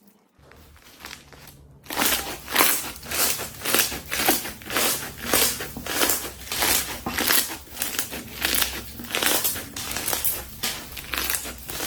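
Slime being squeezed and pressed by hand, a crackling, crunching squish repeating about two to three times a second, starting about two seconds in.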